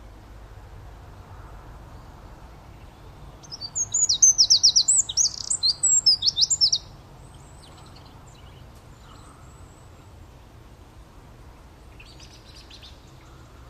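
A small songbird singing: a loud, rapid run of high, sweeping notes lasting about three seconds, starting a few seconds in, then a fainter short phrase near the end.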